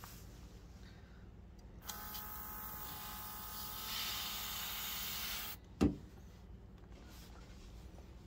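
Autolock cordless airbrush running: its built-in compressor whines steadily while air and paint hiss from the nozzle for about four seconds, then it cuts off. A single sharp knock follows shortly after.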